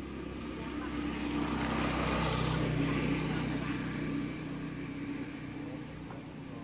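A motor vehicle passing by: its steady engine note grows louder to a peak a couple of seconds in, then fades away.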